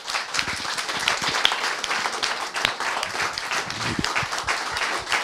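A small group of people applauding, with many hand claps overlapping in a steady stream.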